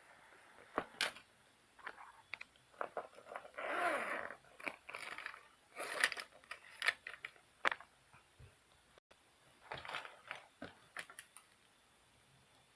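A pencil case and its stationery being handled: scattered clicks, taps and light clatter, with a longer rustling scrape about four seconds in and another cluster of clicks around ten seconds in.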